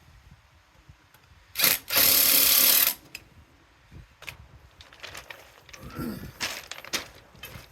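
Bosch SDS-plus hammer drill running in a short burst, then steadily for about a second, followed by scattered small knocks and rattles.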